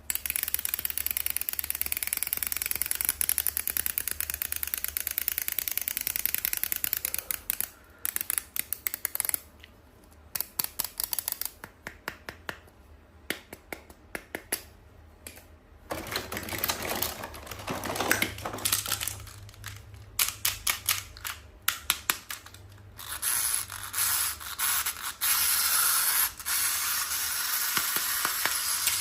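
Close-up handling sounds from unboxing a toy: stretches of rustling with runs of quick clicks and taps in the middle.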